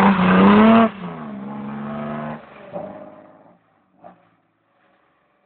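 BMW 320i engine revving hard for about a second, then dropping to a quieter, steadier run that fades away over the next two seconds, leaving near silence.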